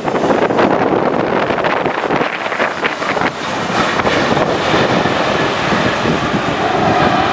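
Strong, gusty typhoon wind buffeting the microphone, mixed with the jet engine noise of a landing airliner. A steadier engine tone comes up near the end.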